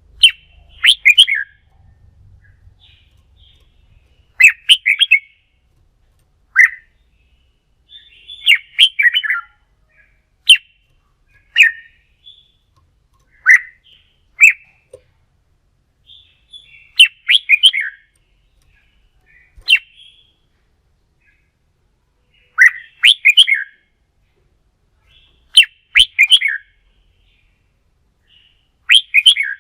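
Red-whiskered bulbul singing its competitive song: short phrases of quick, clear notes, one phrase every one to four seconds with short silences between.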